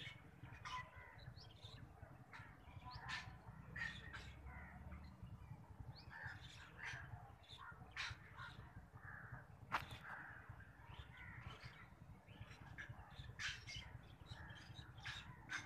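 Faint calls from several birds, many short calls following one another, over a low steady rumble. A single sharp click about two-thirds of the way through is the loudest moment.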